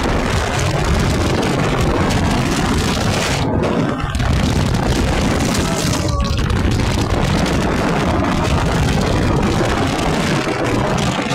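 Wind rushing over the phone's microphone on a moving scooter, with the scooter's motor and road noise underneath.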